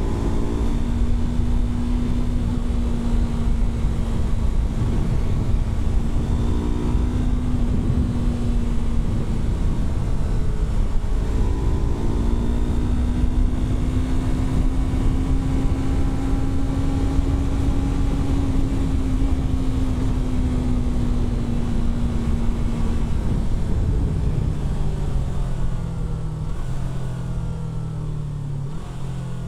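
Yamaha R3 parallel-twin engine running at steady speed under a constant rush of wind noise. The engine note shifts briefly a few times, then falls lower in steps near the end as the bike slows.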